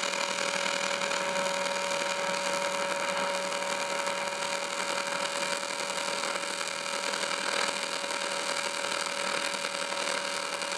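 AC TIG welding arc buzzing steadily on aluminium while it runs a weld puddle along the joint between two aluminium tabs.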